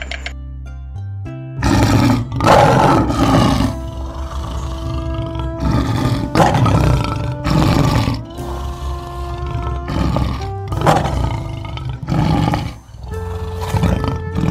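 A lion roaring: a series of about eight roars starting a second and a half in, the later ones shorter, over background music of held notes.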